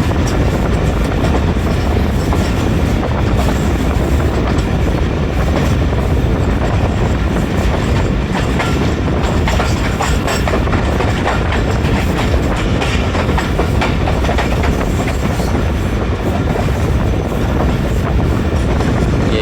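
Train running along the track: a steady rumble of wheels on rails with the clickety-clack of rail joints, unbroken throughout.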